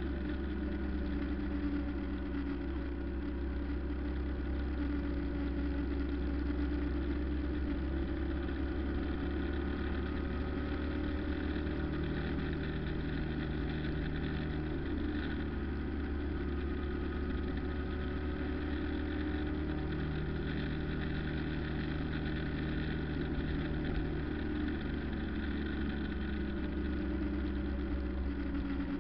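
Engine and road noise of a moving road vehicle heard from inside, a steady low drone with a hum whose pitch shifts slightly every few seconds as the speed changes.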